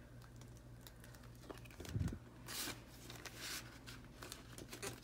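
Paper banknotes and a plastic binder envelope rustling and crinkling faintly as cash is slipped into the envelope, with a soft thump about two seconds in.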